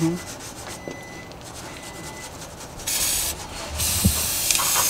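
Aerosol can of brake cleaner spraying in two hissing bursts: a short one about three seconds in, then a longer one starting about a second later.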